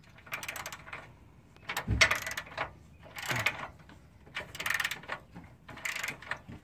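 Socket ratchet on a long extension clicking in short bursts as it is swung back and forth, about five bursts roughly a second apart, working a 14 mm catalytic converter bolt loose. A dull knock sounds about two seconds in.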